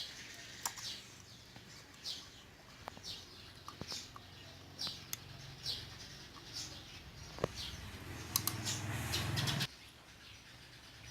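A bird chirping over and over in short, falling chirps, with a few light clicks. A low hum comes in about eight seconds in and stops suddenly shortly before the end.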